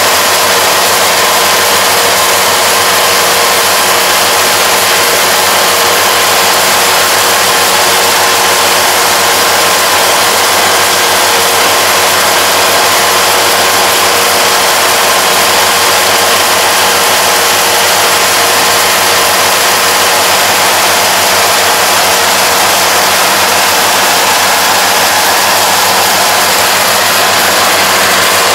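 Yanmar AE447 combine harvester running under working load as it cuts and threshes standing grain. Its engine and threshing machinery make a loud, steady drone carrying a few constant whining tones.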